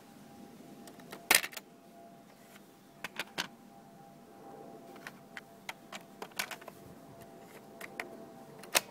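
Plastic clicks and snaps from a Grundig C420 cassette recorder's cassette holder and keys as the holder is opened and a cassette is put in. The loudest snap comes about a second in, a run of smaller clicks follows in the middle, and another loud snap comes near the end.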